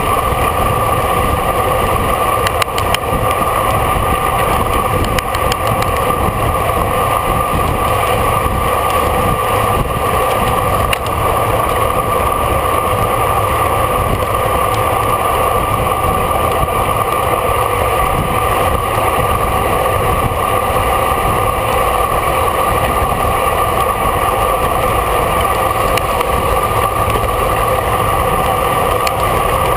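Steady wind and road rush on a bicycle-mounted camera while riding, with a constant hum running through it.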